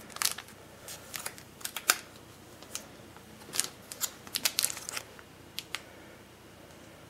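Foil wrapper of a trading-card pack crinkling and crackling in the hands: a run of sharp, irregular crackles that die away near the end.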